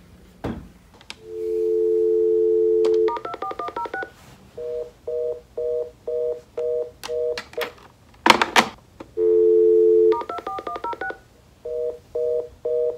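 Corded landline telephone: a steady dial tone, then a quick run of about ten touch-tone digits, then a busy tone beeping about twice a second, so the call does not go through. A loud clunk from the handset comes in the middle, and the dial tone, the digits and the busy tone come again.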